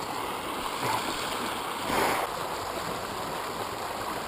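River water rushing and churning over rocks below a small dam chute, a steady rush with a brief louder swell about two seconds in.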